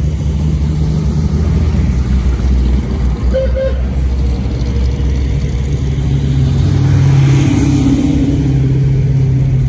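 Classic cars cruising slowly past, their engines running with a deep, steady low note; one car grows louder about seven seconds in as it passes close.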